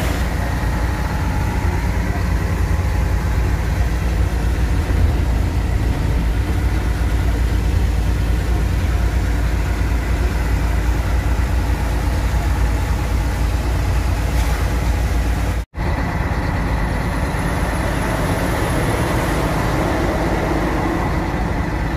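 Scania truck driving on the highway: steady engine drone and road noise heard from inside the cab. The sound drops out for an instant about two-thirds of the way through.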